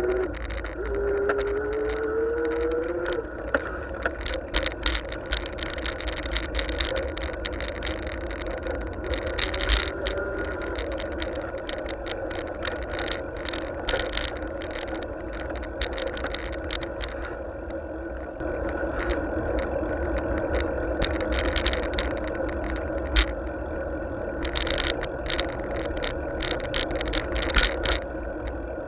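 Riding a bicycle, recorded from a camera on the bike: a steady low wind rumble on the microphone, with frequent irregular rattles and clicks as the bike and its mounted camera jolt over the tarmac. A short rising tone sounds in the first few seconds.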